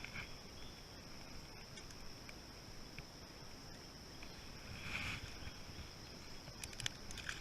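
Insects chirring steadily at a high pitch, with a brief faint sound about five seconds in and a few quick clicks near the end.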